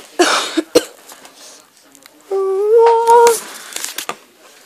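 A person hums one held note for about a second, its pitch rising slightly, a little over two seconds in. Before it, near the start, a short rustle and a click of handling.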